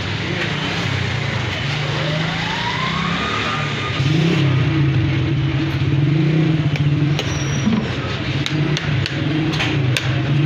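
Street traffic: a motor vehicle's engine running close by, its pitch wavering up and down, with one rising tone about two seconds in and a few sharp clicks in the second half.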